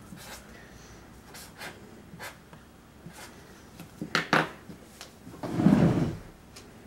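A sheet of paper being written on and handled on a countertop: faint scratching and rustling, two sharp clicks about four seconds in, and a louder rustling thump around five and a half seconds in.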